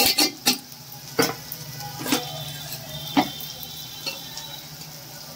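Steel spoon clinking against steel bowls and utensils about six times, the strikes spread unevenly and a few leaving a brief metallic ring. Under it, a faint steady sizzle of onion and ginger-garlic paste frying in oil.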